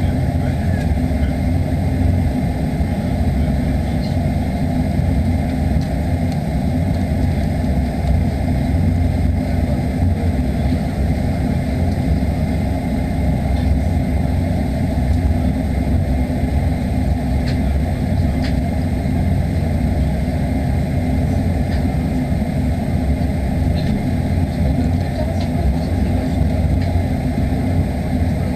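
Steady low rumble inside the cabin of a Boeing 737-800 holding still on the ground, its CFM56 jet engines idling, with a faint high steady whine on top.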